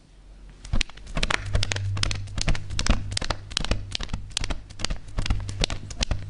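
Foley horse hoofbeats performed by two people knocking objects together: a quick clip-clop of many sharp knocks in a running rhythm, starting about a second in.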